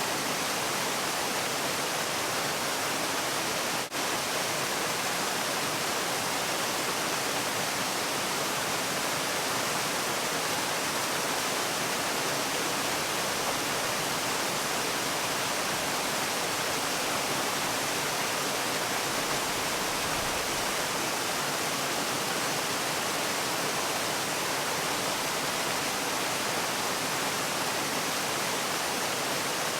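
Waterfall: steady rushing of falling water, even and unbroken, with a brief dip in loudness about four seconds in.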